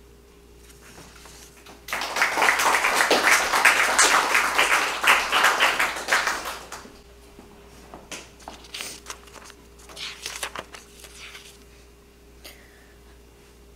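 Audience applauding for about four and a half seconds, starting about two seconds in, after a poem ends. Scattered light knocks and rustling follow.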